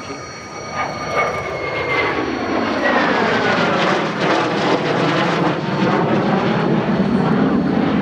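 The twin Klimov RD-33 turbofan engines of a MiG-29 fighter in a low display pass. A high whine falls in pitch about two seconds in, and the jet noise builds and stays loud with a sweeping, swirling quality as the jet goes by.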